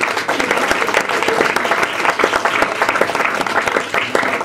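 Wedding guests applauding: many people clapping at once in a steady, sustained round.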